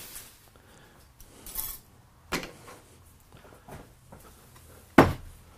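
Scattered clicks and knocks of hand tools being handled and set down at a metal lathe, with one sharp knock near the end, over a faint steady hum.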